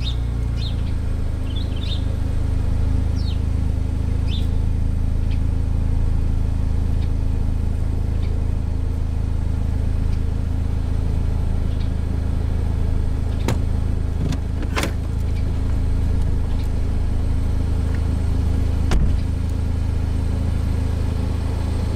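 Car engine running with a steady low drone. There are a few short high chirps in the first seconds and a few sharp clicks later, the last with a small thump.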